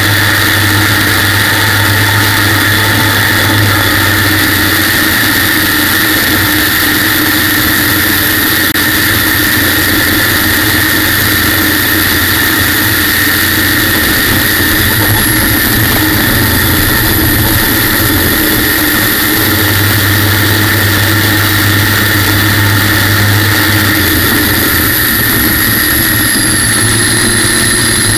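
General Electric helicopter gas turbine driving a racing jet boat at speed, heard onboard: a loud, steady turbine whine. Its high tone dips briefly about halfway through and settles slightly lower near the end.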